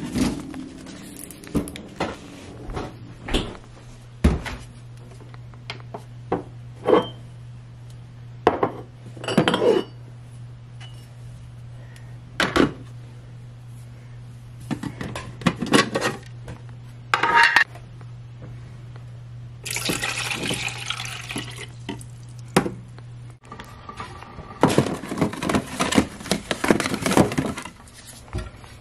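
Kitchen handling sounds: many short clinks and knocks of a bottle, a mug and cupboard doors being moved, over a steady low hum that stops about two-thirds of the way through. A few seconds of rushing noise come shortly before the hum stops, and another stretch of noisy rustling comes near the end.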